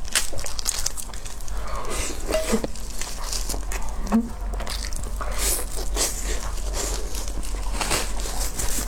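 Close-up eating sounds of seafood: repeated crunching and biting with short clicks and rustles, over a steady low hum.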